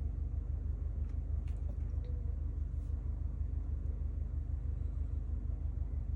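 A steady low hum of background noise, with a few faint light ticks in the first half.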